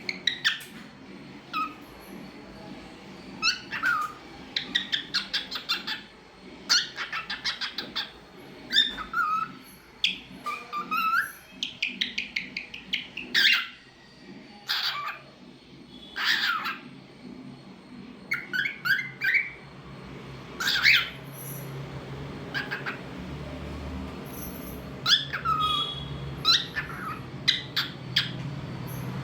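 A cockatiel chirping and whistling in repeated bouts, mixing fast chattering runs of notes with sweeping up-and-down whistles.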